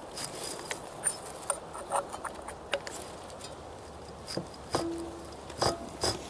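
A 1956 Packard 374 V8 being turned over by hand with a wrench on the crankshaft bolt, giving irregular sharp clicks and ticks. The owner first takes the noise for a valve problem, then traces it to oil squirting out of a cylinder.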